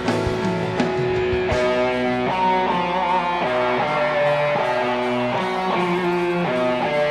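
Live band playing an instrumental passage, a guitar carrying a melody of held notes that step from pitch to pitch; the drum hits stop about a second and a half in.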